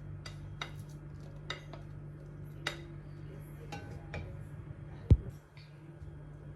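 Kitchen dishes and utensils clinking as they are handled, a series of light clinks and knocks, with one loud thud about five seconds in, over a low steady hum.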